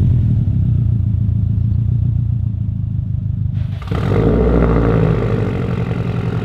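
2015 Subaru WRX STi's turbocharged flat-four boxer engine running through an Invidia N1 3-inch single-exit stainless catback exhaust. It idles steadily, then is revved briefly about four seconds in.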